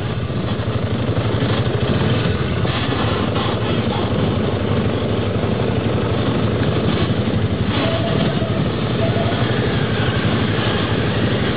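Engine of an all-terrain three-wheeler (ATC) running steadily.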